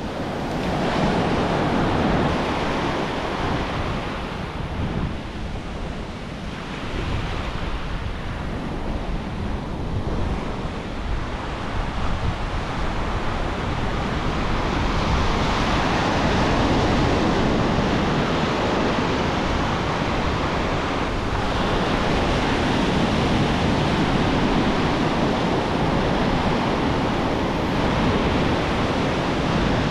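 Ocean surf breaking and washing up a sandy beach: a steady rushing of whitewater, growing louder about halfway through.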